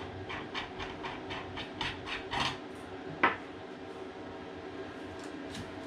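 Hands handling an air rifle and small parts on a wooden workbench: a few soft taps and rubs, then one sharp click about three seconds in, over a steady low hum.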